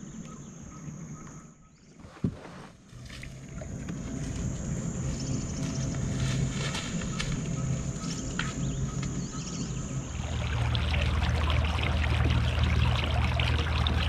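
Kayak moving across the water, its hull washing through small waves, with a steady high-pitched insect buzz that stops about ten seconds in. A single knock comes about two seconds in, and near the end the water noise and a low rumble grow louder.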